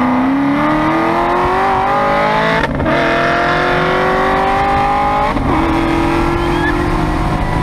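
Car engine at full throttle heard from inside the cabin, its pitch climbing steadily, with two quick gear shifts about a third and two thirds of the way through, where the pitch drops and then climbs again.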